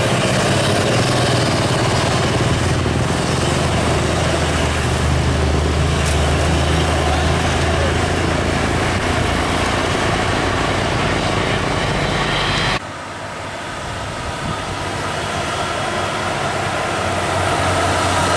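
Diesel engine of a heavily loaded Mitsubishi Fuso Fighter dump truck running under load as it passes at low speed, a deep steady engine note amid road traffic. About 13 s in the sound cuts off sharply and drops, then another loaded Fuso Fighter's engine grows louder as it approaches.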